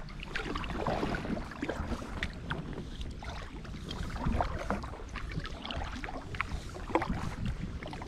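Kayak paddling: the blades dipping and splashing in the water at an irregular pace, with drips, over a low wind rumble on the microphone.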